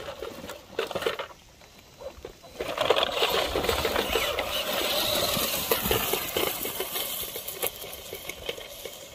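Radio-controlled scale crawler truck working its way over rocks: its small electric motor and gears whirring with a dense clicking and crunching of tyres on stone, louder from about three seconds in and easing off near the end.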